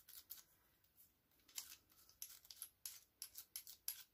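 Faint, irregular short scratches and taps of a bristle die brush dabbed against a die-cut cardstock butterfly, knocking the tiny cut-out paper bits free.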